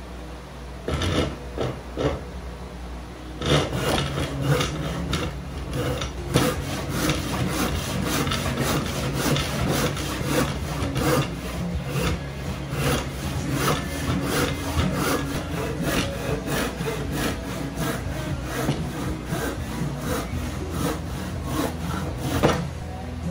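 Hand saw cutting down along the grain of an upright wooden block clamped in a bench vise. A few separate starting strokes come first, then a steady run of regular back-and-forth strokes that stops just before the end.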